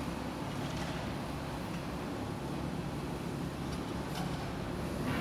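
Demolition excavator's diesel engine running steadily as a low, even rumble, with a couple of faint clicks, while the machine holds still.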